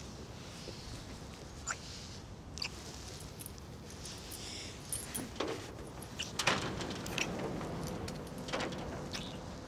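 A bunch of keys jangling and clinking in the hands, in short irregular clinks with the loudest about six and a half seconds in, over a steady low background hum.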